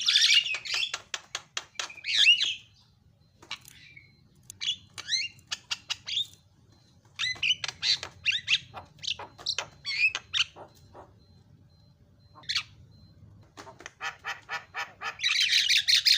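Javan myna singing a fast, chattering song: rapid runs of clicks and harsh squawks mixed with short whistled notes, with a loud burst of harsh chatter near the end.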